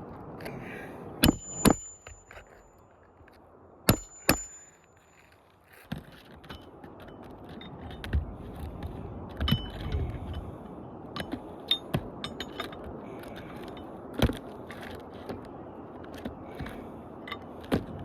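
Nails being driven into asphalt roof shingles: two pairs of sharp strikes with a brief metallic ring in the first few seconds, then lighter scraping and clicking as the shingles are handled.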